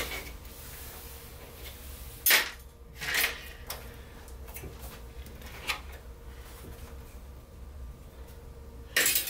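A few sharp clicks and metallic knocks as screws are taken out of the sheet-metal back frame of an LCD TV panel, the loudest about two seconds in and a short cluster near the end.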